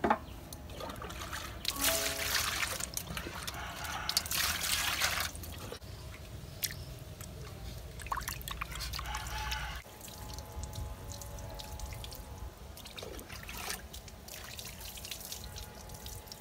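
Water splashing and dripping in a metal basin as hands wash a whole fish, coming in several bursts with pauses between them.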